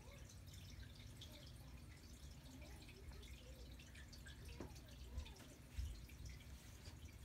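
Near silence: room tone with a faint steady hum and scattered faint ticks, one slightly clearer click about four and a half seconds in.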